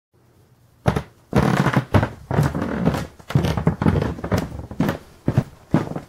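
A man's footsteps walking on hard flooring, about two steps a second, starting about a second in, with some shoe scuffing between the early steps.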